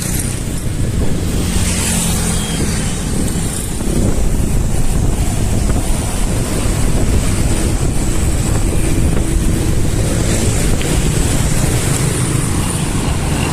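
Wind buffeting the microphone of a moving road bicycle's camera, a steady low rumbling rush that gets a little louder about four seconds in.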